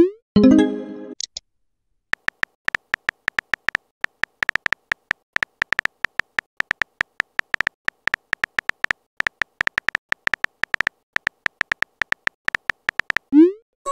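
Keyboard tap sounds of a phone messaging app, a fast, even stream of short high clicks as a message is typed. A rising swoosh with a brief tone-rich blip marks a message being sent at the start, and another rising swoosh comes near the end.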